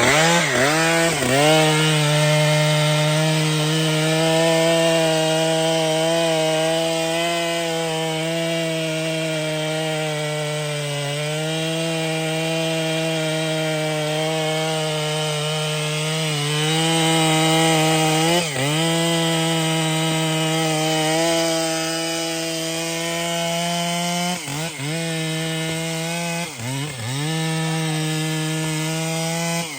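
Large two-stroke chainsaw at full throttle cutting through wood. Its engine note holds steady under load, and several times it dips briefly and recovers, more often near the end.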